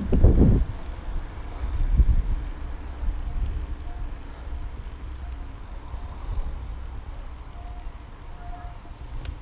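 Wind buffeting the action camera's microphone and the low rumble of a bicycle rolling across asphalt, with two heavier bumps just after the start and about two seconds in.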